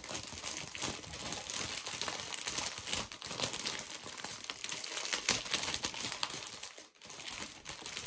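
Diamond-painting canvas, its paper cover and plastic drill bags being handled: continuous crinkling and rustling made of many small crackles, with a short lull about seven seconds in.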